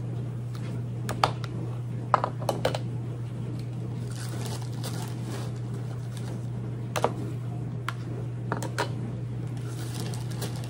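Brown sugar being scooped from its bag with a plastic measuring cup and tipped into glass canning jars: scattered light clicks and taps of the cup against the jars and the bag, with some rustling, over a steady low hum.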